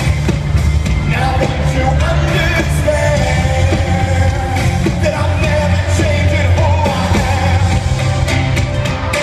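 Rock band playing live, with the lead singer singing over drums, guitars and bass, recorded from the audience in a large concert hall.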